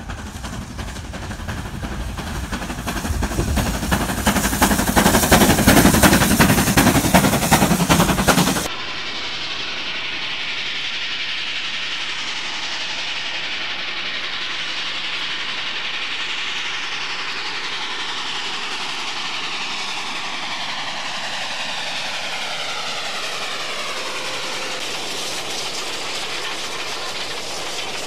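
Steam locomotive working hard, its rapid exhaust beats growing louder as it approaches. About nine seconds in, this cuts off abruptly and gives way to a steadier, quieter train running sound with a slow downward sweep.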